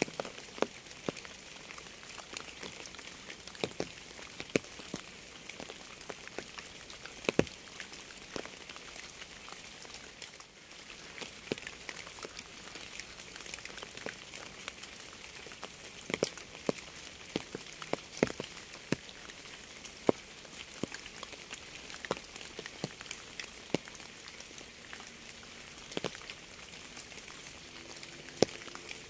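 Steady rainfall hissing, with individual raindrops landing nearby as sharp ticks at irregular intervals.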